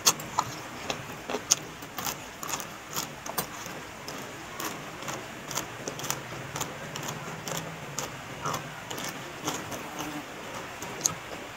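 Close-miked eating sounds: a mouthful of noodles, then crisp crunching and wet chewing of raw green bean pods, with irregular crunches several times a second.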